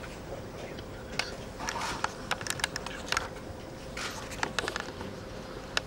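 A standing crowd hushed for a moment of silence: scattered small clicks and rustles, with a faint steady hum underneath.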